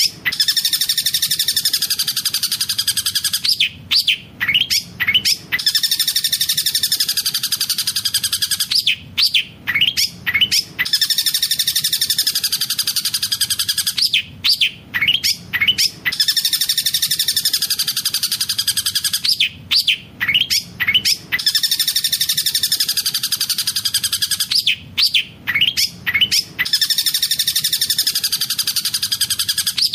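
Long-tailed shrike singing a fast, rolling song filled with mimicked tengkek buto (kingfisher) calls: a rapid run of sharp chirps followed by a long, high warbling trill. The same phrase repeats about every five seconds.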